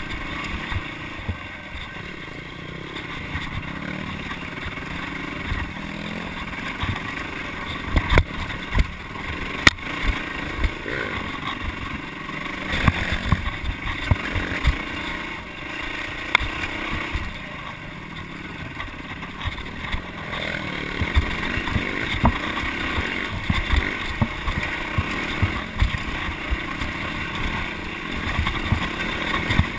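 Yamaha dirt bike's engine running as the bike is ridden over a rough trail, with frequent sharp knocks and clatter from the bike jolting over the ground.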